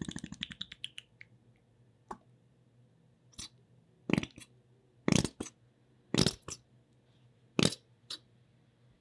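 Plastic squeeze bottle over a stainless-steel bowl: a stream of clear liquid trickles and drips out at the start, then the bottle spits out the last of the liquid in about eight short sputters of air and liquid, several of them in quick pairs.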